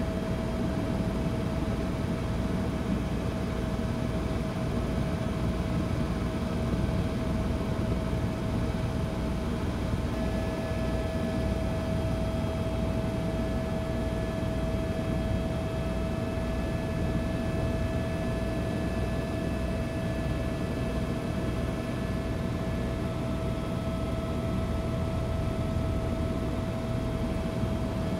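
Helicopter in flight heard from inside the cabin: a steady engine and rotor drone with a constant high-pitched tone over it.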